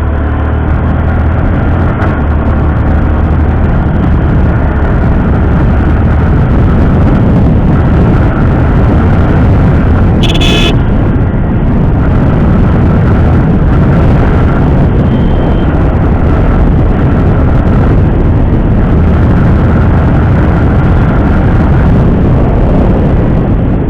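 Motorcycle riding at high speed: wind rushing over the action-camera microphone with engine and road noise, loud and unbroken. A brief horn sounds about ten seconds in.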